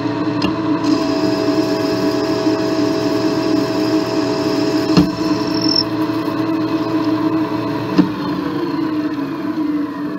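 Lathe spindle running at about 800 RPM while a turning tool cuts an aluminum part: a steady machine hum, with a thin high whine for the first half and sharp clicks about 5 s and 8 s in.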